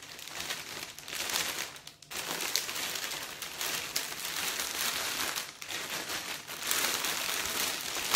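Clear cellophane wrap crinkling and rustling as it is gathered and bunched by hand, in long stretches broken by short pauses about two seconds in and again around five and a half seconds.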